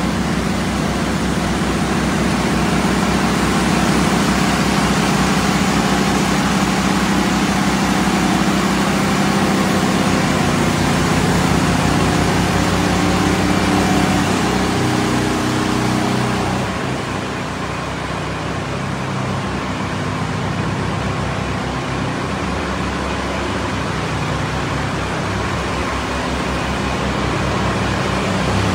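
Engine-driven pressure washer running steadily: a continuous engine hum under an even hiss. The engine note shifts and the sound drops a little about halfway through.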